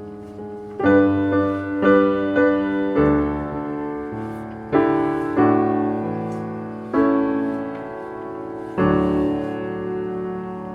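Background piano music: slow, gentle chords struck one after another, each left to ring.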